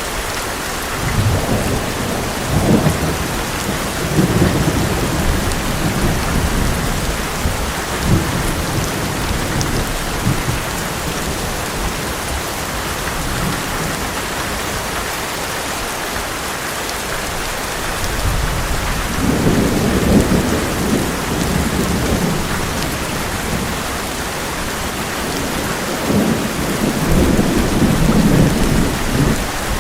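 Heavy rain drumming steadily on an old metal roof, with three long rolls of thunder rumbling through it: one in the first third, one in the middle and one near the end.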